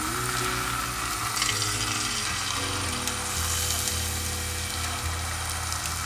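Thin potato slices frying in hot oil, a steady sizzle, over background music.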